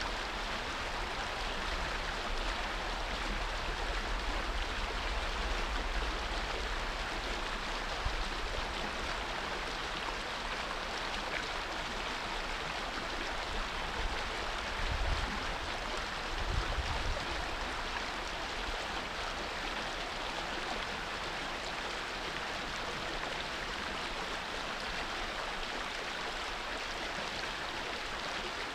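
Shallow creek running over rocks: a steady, even rush of flowing water. A few brief low rumbles come about halfway through.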